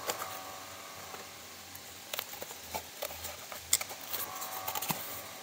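Handling of a small cardboard box, its paper sleeve and the foam packing inside: light rustles and taps, with several sharper clicks in the second half.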